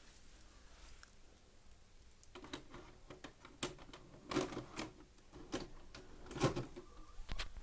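A VHS cassette is pushed into an LG VHS player, and the machine's loading mechanism takes it in, starting tape playback. A run of clicks and clunks begins about two and a half seconds in, with the loudest clunk near the end.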